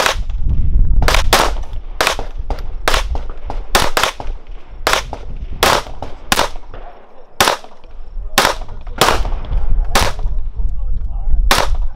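Gunshots from a compact semi-automatic firearm, about fifteen sharp shots fired in quick succession at uneven intervals of roughly half a second, with a low rumble under them.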